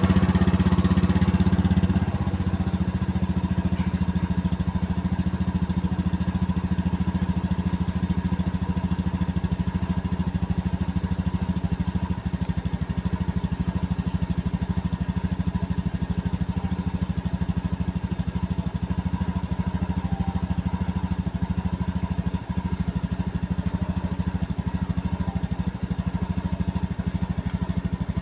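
Automatic scooter's engine running at idle just after being started, a little faster and louder for the first two seconds before settling to a steady idle.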